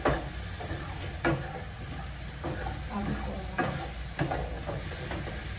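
Cherry tomatoes and sliced mushrooms sizzling in a non-stick frying pan as a plastic spatula stirs them. The spatula scrapes and knocks against the pan several times, sharpest near the start and about a second in.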